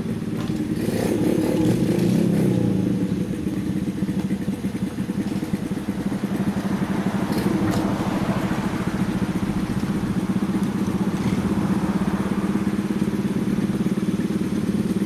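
Several Honda Monkey-type 4mini motorcycles with small single-cylinder four-stroke engines idling together in a steady, uneven patter, swelling briefly a second or two in.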